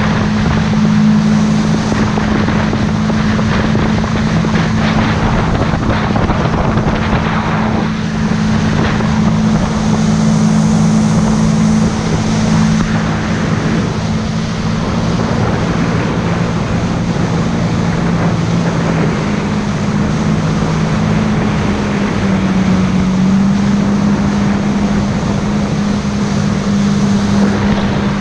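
Yamaha personal watercraft (jet ski) running at speed, its engine holding a steady drone under the rushing hiss of spray off the hull.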